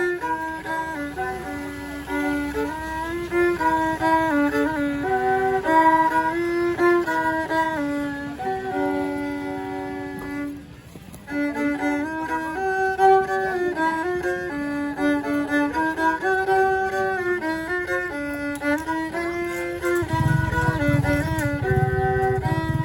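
Background instrumental music: a melody of held notes stepping up and down, breaking off briefly about halfway, with a deeper low part joining near the end.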